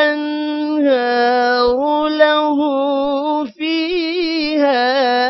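Quran recitation: a single voice chanting in melodic tajweed style, drawing out long held notes, with a short break about three and a half seconds in.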